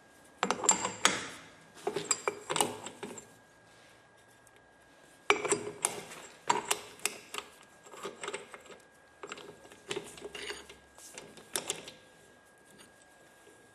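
Metal hand tool working on the centre hub nut of a Peugeot 206 rear axle as it is slackened: bursts of sharp metallic clicking and clanking, with short pauses between spells.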